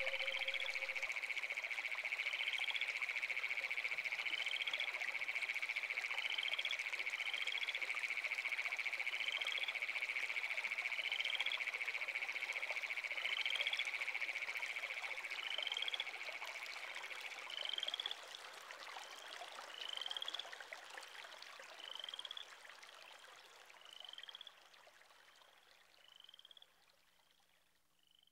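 Nature ambience of calling animals: a steady high-pitched drone with a short rising chirp repeated roughly once a second. The drone stops about eighteen seconds in and the chirps fade out before the end.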